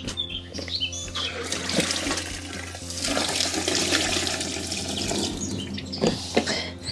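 Rinse water pouring from the spout of a Thetford toilet cassette into a plastic chemical toilet disposal point: a steady gush that builds about a second and a half in, then tails off to a trickle near the end as the cassette empties.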